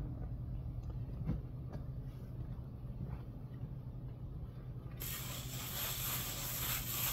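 Plastic stucco float being worked over acrylic super fine finish on a foam board, laying the material down: a faint hiss starting about five seconds in, over a steady low hum and a few light clicks.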